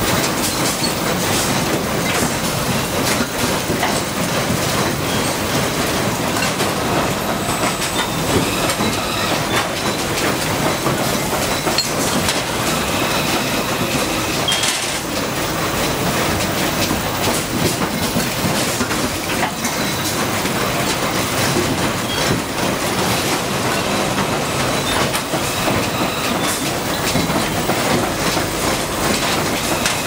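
Motor stator production line machinery running: a loud, steady mechanical din made up of many fine clicks and rattles.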